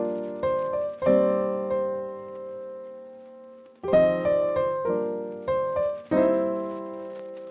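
Piano music: slow chords, each struck and left to ring out, with one long chord held and fading away in the middle before a few more chords are played.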